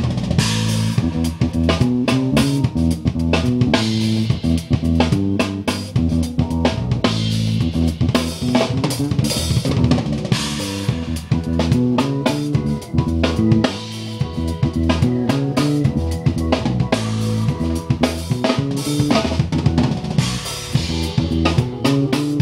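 Live band rehearsal: a drum kit with kick, snare and cymbals keeping a steady beat under an electric bass guitar line, played loud in a small room.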